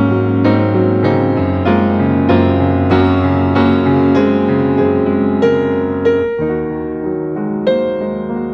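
Background music: a piano melody over sustained chords, with the harmony shifting about six seconds in.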